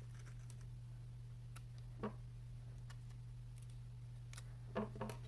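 A few light plastic clicks of the loose piston knob on a PenBBS 494 fountain pen rattling as it is handled, one about two seconds in and a quick cluster near the end: the tape shim has not stopped the rattle. A steady low hum runs underneath.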